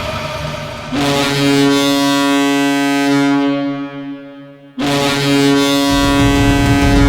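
Toronto Marlies hockey goal horn sounding two long blasts on one steady note. The first starts about a second in and dies away after about three seconds; the second starts near the five-second mark. A goal song with heavy drums and guitar comes in under the second blast.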